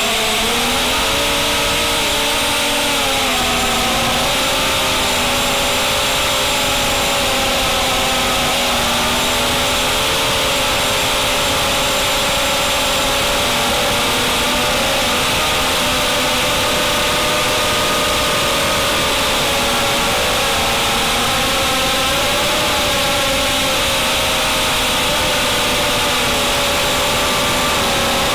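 Brushless motors and propellers of a 250-size FPV racing quadcopter, heard from its onboard camera: a steady buzzing whine whose pitch keeps rising and falling with the throttle, over a constant hiss.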